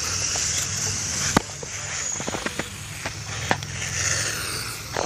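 1/10-scale electric dirt-modified RC cars with 17.5-turn brushless motors running laps on a clay oval: a steady high motor whine and tyre hiss, loudest in the first second or so as a car passes close, with scattered sharp clicks.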